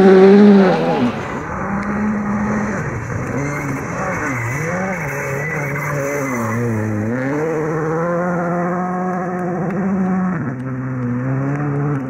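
Rally car engine running hard, its pitch repeatedly dropping and climbing again as the throttle and gears change; loudest in the first second, then steadier and less loud.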